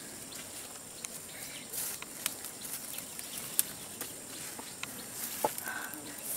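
Leaves rustling with a scatter of short sharp snaps as flower stems are picked by hand from a shrub. A steady high insect hum runs underneath, with two brief chirps.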